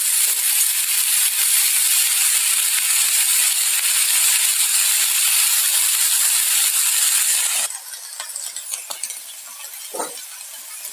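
Broccoli, potato and carrot frying in hot oil in a kadai, a steady loud sizzle that drops off sharply about three-quarters of the way through to a much quieter crackle.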